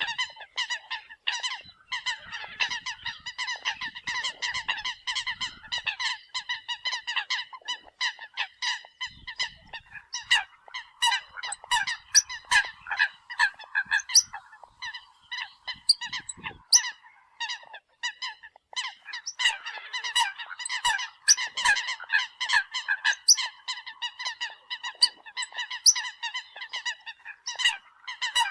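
Eurasian coots calling: a dense run of short, nasal, honking calls repeated several times a second, mixed with sharp clicky notes, easing briefly twice.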